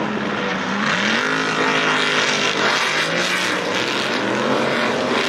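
Engines of several off-road race buggies revving as they race past, their notes overlapping at different pitches, one climbing about a second in.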